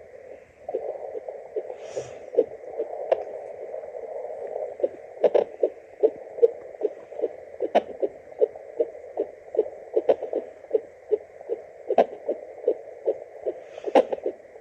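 Unborn baby's heartbeat through a fetal doppler: a fast, regular pulse about two and a half beats a second over a steady hiss. About every two seconds a sharper knock breaks in, which is the baby hiccuping in the womb.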